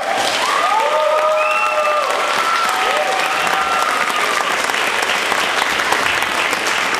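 Audience applauding, with several high-pitched cheers over the clapping in the first three seconds.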